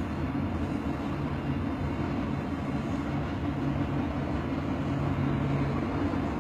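Steady low mechanical hum and rumble, unchanging throughout.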